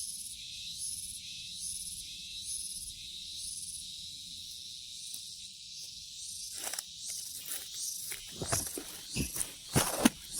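Insects chirping in a steady pulsing rhythm, a little faster than one pulse a second. From about two-thirds of the way in come rustling and a run of sharp knocks and thumps, loudest near the end.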